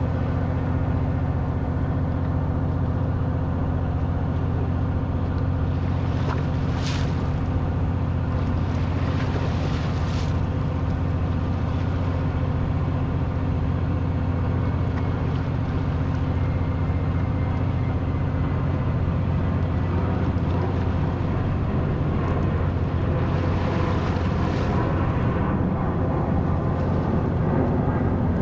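Fishing boat's motor running with a steady low hum, with a few short rushes of hiss over it.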